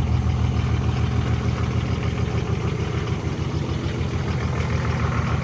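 Nissan SD33-T six-cylinder turbo diesel idling steadily just after a cold start.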